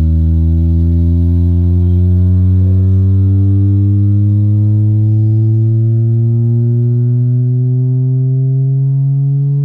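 Bare 18-inch Betavo B18-V5522 double-magnet subwoofer driver playing a 25–150 Hz frequency-sweep test tone. It is a loud low tone with overtones, rising slowly and steadily in pitch.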